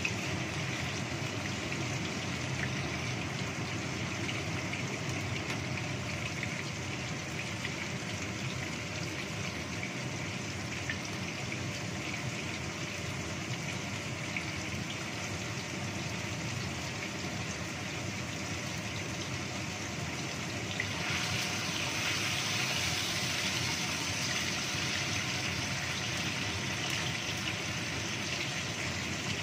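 Tofu cubes frying in oil in a wok, a steady sizzle, over the steady rush of a kitchen extractor hood fan. The sizzle grows louder about twenty seconds in.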